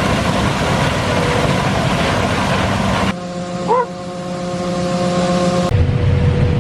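Combine harvester running while shelling corn with a six-row corn head: steady, loud machine noise. About three seconds in the sound cuts abruptly to a quieter hum with several steady whining tones and a brief rising chirp. Near the end it cuts again to a deep rumble.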